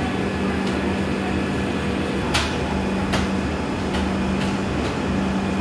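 Steady machinery hum of a stationary passenger train's coaches, a constant low drone over a broad background hiss. A handful of short, sharp clicks sound in the second half.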